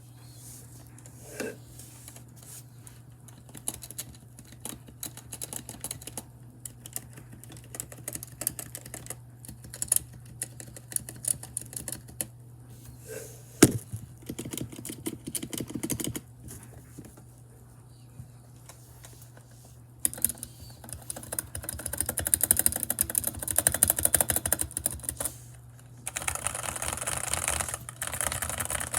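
Mechanical keyboard with budget stabilizers and a tape mod being typed on: scattered single keystrokes through the first half, one sharper, louder clack about halfway, then fast continuous typing through the last third.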